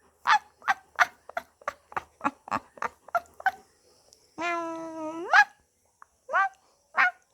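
A dog barking: a quick run of short barks, about three a second, then one longer drawn-out call that rises in pitch at its end, then two more barks near the end.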